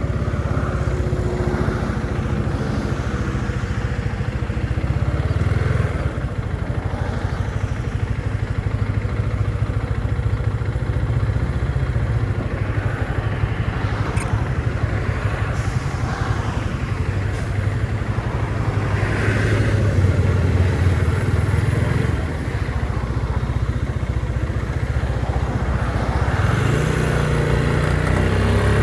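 Motorcycle engine running steadily while being ridden, with its pitch rising as it revs up near the end.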